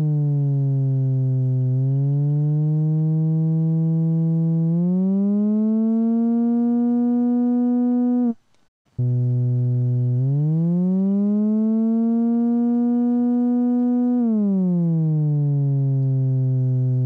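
Arturia MicroBrute analog synthesizer playing sustained notes with glide (portamento) at maximum: the pitch slides smoothly up an octave and back down between keys instead of jumping. It plays two phrases, with a short break a little past halfway.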